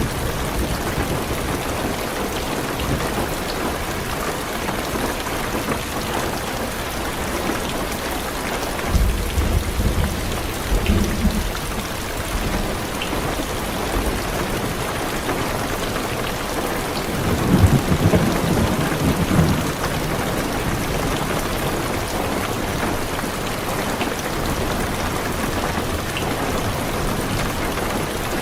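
Heavy rain drumming steadily on a car's roof and windows, heard from inside the car. Thunder rumbles low twice, about nine seconds in and again about eight seconds later.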